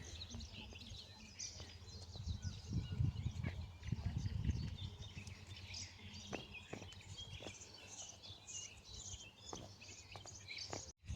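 Many small birds chirping in outdoor ambience, with an uneven low rumble of wind on the microphone underneath.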